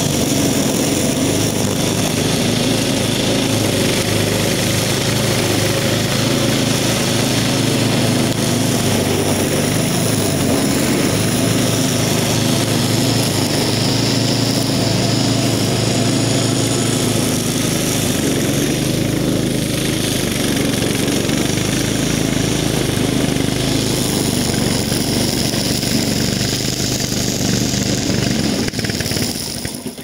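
Petrol engine of a wheeled, self-propelled string trimmer (Flo Blue Bird) running steadily at full working speed while its cutting line thrashes through dry grass. The sound drops off sharply at the very end.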